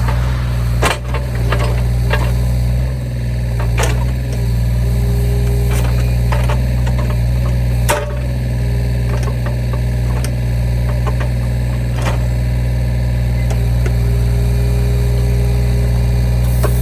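Mini excavator engine running steadily under work, with several sharp knocks scattered through.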